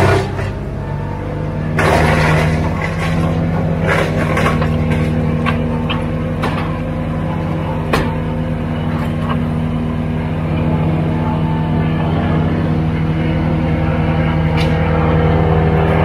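Cormidi C1500 mini skid steer's engine running steadily under throttle as the machine drives and carries a log, with a few sharp metal clanks and knocks from the loader.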